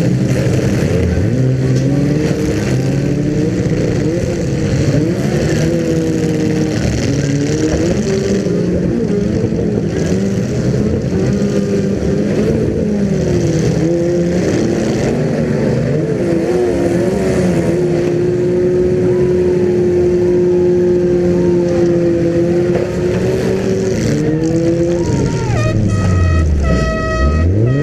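Several car engines running and revving at once, their pitches rising and falling as they are throttled on and off, typical of cars being driven in a demolition derby. Near the end, one engine drops to a low note and revs back up.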